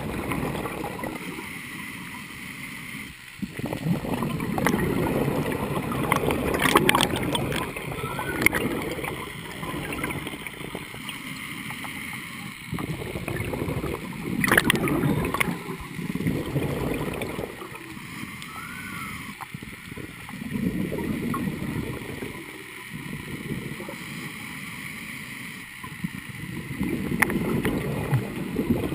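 Underwater sound of a scuba diver's exhaled bubbles gurgling from the regulator, in surges that come and go every several seconds with the breathing, and a few sharp clicks between.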